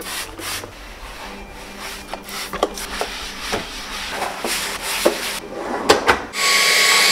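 A sponge and paper towel scrubbing and rubbing the inside of an empty kitchen drawer, with scattered small knocks against the drawer. A louder hiss starts near the end.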